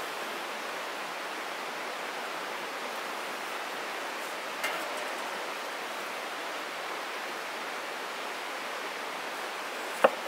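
Steady rushing outdoor background noise, with a light click about halfway through and a single sharp knock near the end.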